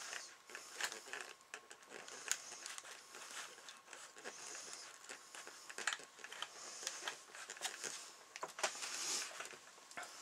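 Tissue paper being smoothed by hand over a fish skin: soft crinkling and rustling with many small clicks and scrapes as the fingers rub it down.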